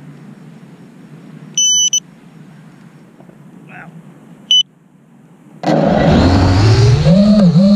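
Two short electronic beeps from a racing quadcopter, then its motors spin up suddenly near the end and run loud, with the motor whine wavering up and down in pitch as the throttle changes.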